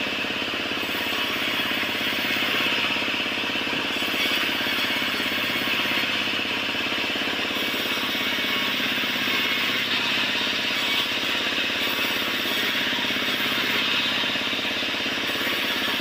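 Sawmill band saw running and ripping through a timber plank: a steady, even buzzing hiss of the blade in the wood over a constant machine hum.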